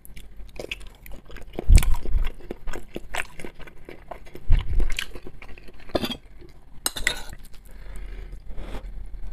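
Close-miked eating: chewing and biting on food, with a spoon clinking and scraping on a plate. Two heavier low thumps come about two seconds and four and a half seconds in.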